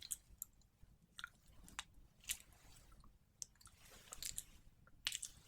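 Faint, close-up wet ASMR trigger sounds: scattered sharp clicks and short crackles, several a second at irregular spacing, with a brief cluster about four seconds in and another a little after five seconds.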